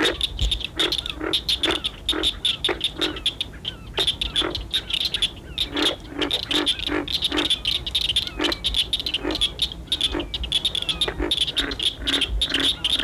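Frogs calling: short croaks repeated two or three times a second over a steady, high-pitched chorus.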